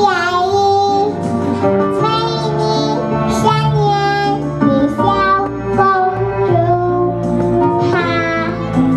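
A young girl's voice singing a children's song into a microphone, over instrumental accompaniment.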